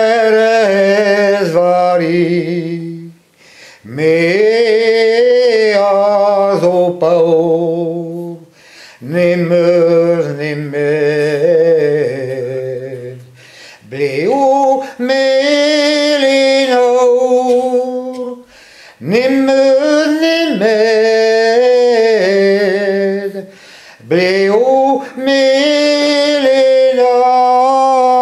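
A man singing unaccompanied in Breton, in a series of phrases of about four seconds each with short breaths between, ending on held notes.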